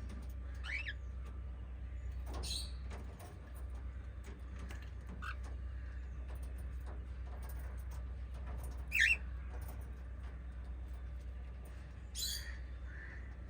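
Small pet parrots giving a few short, scattered chirps and squawks, the loudest about nine seconds in, over a steady low hum.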